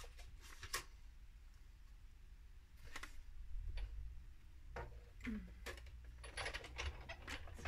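Scattered faint clicks and taps of small objects being handled, a few more close together near the end, over a low steady hum.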